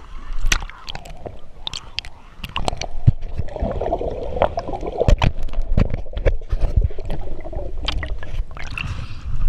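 Water sloshing and gurgling around a swimmer, with many sharp knocks and clicks throughout and a stretch of bubbling in the middle.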